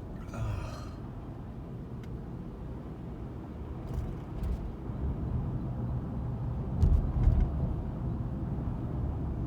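Steady low road and engine rumble inside a moving car's cabin, with a few faint clicks and a couple of low thumps about seven seconds in.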